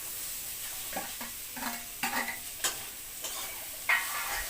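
Peas and fried potato pieces being stirred into a spiced masala frying in a pan: a spoon scrapes and knocks against the pan about five times over a steady sizzle, the loudest knock near the end.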